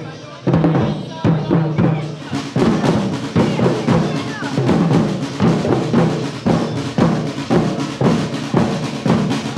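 A street drum band plays bass drums struck with soft mallets and snare drums, beating a steady rhythm of about two strong beats a second. The beat picks up again about half a second in.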